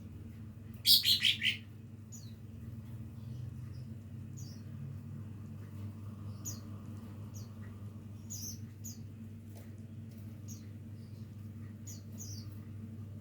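Cucak ijo (green leafbird) practising its song: a loud quick run of four or five falling notes about a second in, then faint scattered short high chirps. A steady low hum runs underneath.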